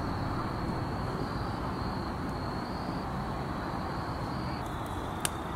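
Evening woodland ambience: crickets trilling steadily in a thin high tone over a low, even background rumble, with a single faint click near the end.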